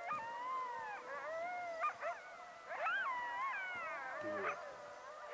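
Coyotes howling together, several wavering voices overlapping and gliding up and down in pitch.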